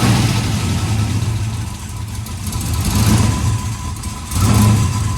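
LS V8 in a Chevrolet Impala running moments after it fires, now that its fuel pump has power again. It runs unevenly, swelling louder about three seconds in and again about four and a half seconds in.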